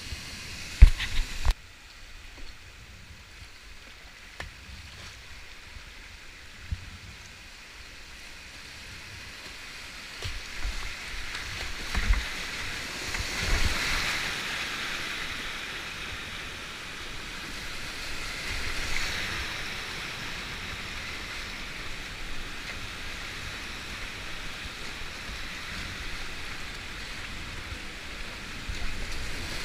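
Rushing white water of a 6–7 m river waterfall, heard from a kayak running it. A few sharp knocks come about a second in; the rushing swells to its loudest a little before halfway, as the boat lands in the foam below the drop, then carries on as a steady rush.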